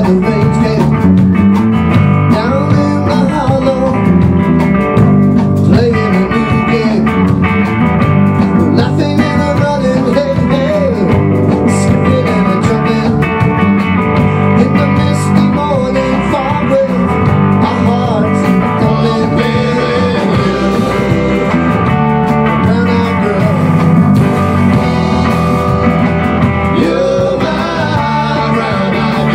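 A live rock band playing: electric guitar, electric bass and a Tama drum kit, loud and steady.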